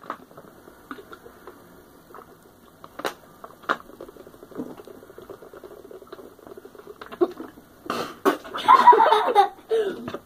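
Water being gulped from thin plastic water bottles, with scattered sharp clicks and crackles of the plastic as the bottles are squeezed and tipped up. About eight and a half seconds in, a boy's voice bursts out briefly.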